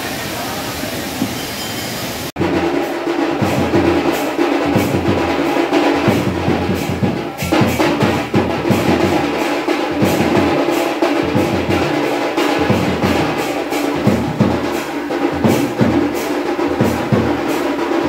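Waterfall rushing, cut off suddenly about two seconds in by loud music with a steady, heavy drum beat.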